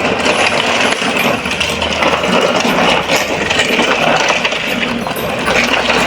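Toy truck loaded with small toy cars, rolling along with a steady clattering rattle from its wheels and the cars in its bed.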